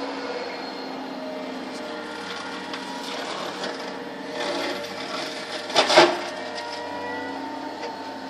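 Excavator-mounted mulcher head running steadily with the machine's engine, shredding shrubs and brush, with a brief loud grinding about six seconds in. Heard through a window pane.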